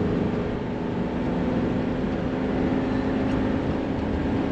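A Class C motorhome driving, its engine running with a steady hum over road noise as it crests a mountain summit.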